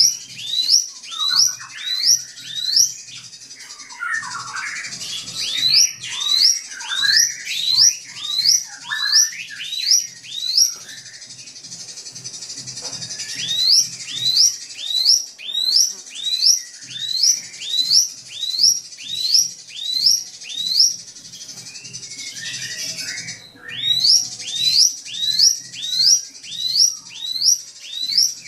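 Drongo (srigunting) singing: runs of sharp, upward-sweeping whistles at about two a second, broken by brief pauses and mixed with lower, warbling notes.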